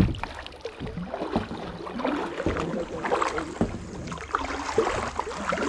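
Kayak paddling: a double-bladed paddle dipping and pulling through calm water, giving steady irregular splashing and dripping. A single sharp knock opens it.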